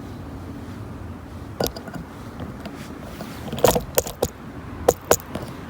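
Steady low background rumble with about half a dozen sharp clicks and knocks, one early and the rest bunched together a little past the middle.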